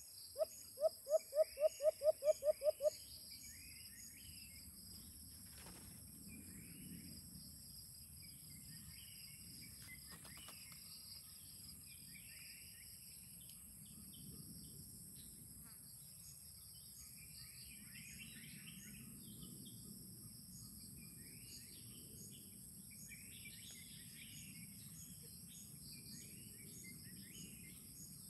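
A white-eared brown dove calls a quick run of about a dozen low hoots in under three seconds, the loudest sound here. Then a steady insect chorus goes on with scattered small bird chirps.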